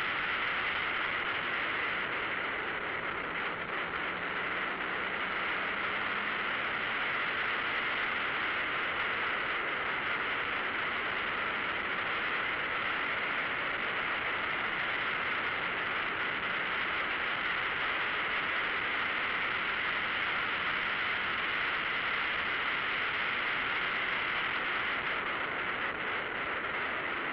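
Steady rushing wind and road noise of a car at track speed, about 55 to 75 mph, with no clear engine note standing out.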